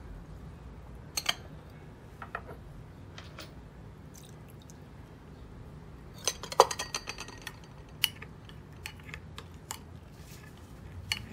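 Metal spoon clinking and scraping against small glass bowls while a sauce is mixed: a few single clinks early, then a quick run of clinks about six seconds in as liquid is poured and stirred.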